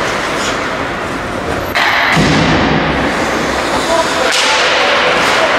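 Ice hockey play in a rink: skates scraping the ice and sticks slapping the puck over steady arena noise, getting louder suddenly about two seconds in.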